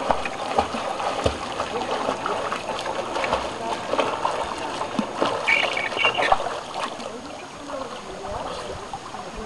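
Swimming strokes and kicks splashing in open water, with an irregular run of splashes and sloshing throughout.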